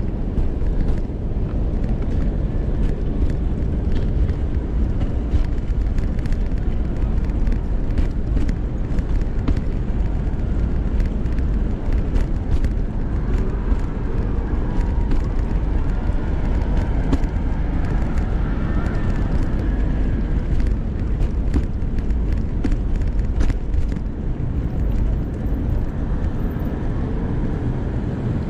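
Pet stroller rolling along a city sidewalk, heard from inside its mesh cabin: a steady low rumble from the wheels on the pavement, with frequent clicks and rattles as they cross bumps and joints. A faint whine rises and falls in the middle.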